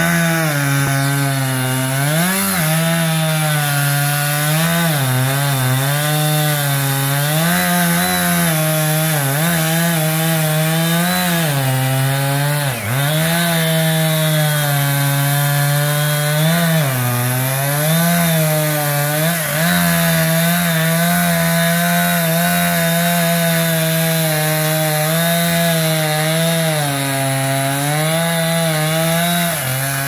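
Chainsaw engine running at high speed as it cuts into the base of a dead tree. Its pitch keeps wavering up and down as the chain bites and frees in the cut, with a brief sharp dip about 13 seconds in.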